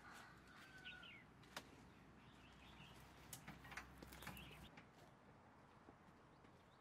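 Near silence: quiet outdoor ambience with a few faint bird chirps in the first second and scattered soft clicks.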